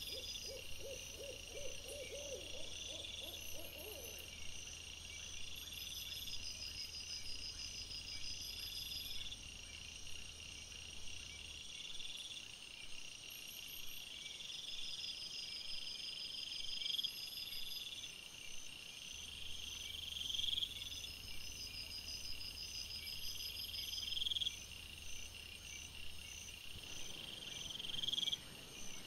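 Night insects chirping in an even repeating pattern, one call about every three and a half seconds over a faint high trill. In the first four seconds a short low pulsing call sounds.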